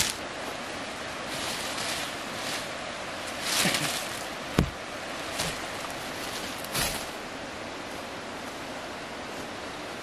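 Leaves and stems rustling and snapping as fodder plants are cut and pulled by hand: a few short crackling rustles and one sharp snap a little before halfway, over a steady hiss of background noise.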